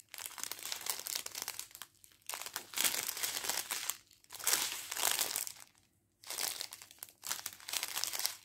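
Clear plastic packaging of diamond-painting drill packets crinkling as it is handled and flexed, in several bursts of crackle with short pauses between.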